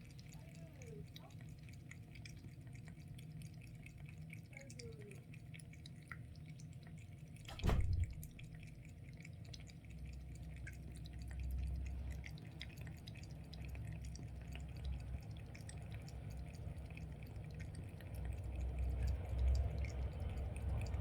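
A kitten lapping water: a long run of faint, quick drip-like ticks. A single thump comes about seven and a half seconds in.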